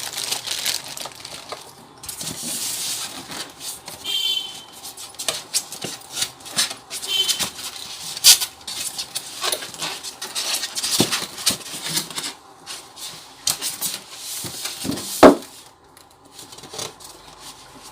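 Unpacking and handling of a new sewing machine and its accessories: uneven rubbing, scraping and small clicks and knocks, with one sharp knock about fifteen seconds in.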